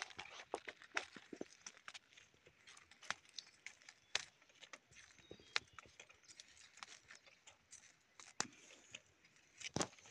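Irregular crackling and rustling of dry forest leaf litter and twigs: many short, sharp clicks at uneven intervals, fairly faint.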